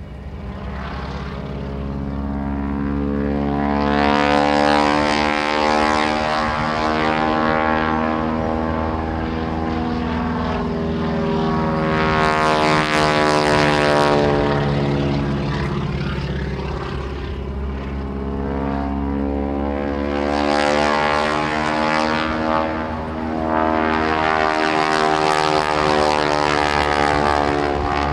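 Aerobatic biplane's piston engine and propeller droning through stunt manoeuvres. The engine note rises and falls in pitch and swells and fades several times as the plane loops and passes.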